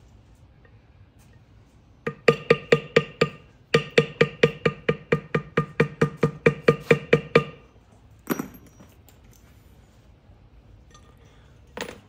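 A mallet tapping a leather-stamping tool into leather: a quick, even run of strikes, about six a second for some five seconds with a short break near the start, each with a brief ringing tone. Then a single strike, and another near the end.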